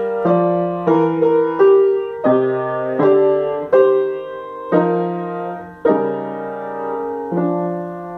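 Upright piano played solo: the closing chords of a piece, struck at a slowing pace, the last one near the end left to ring and fade.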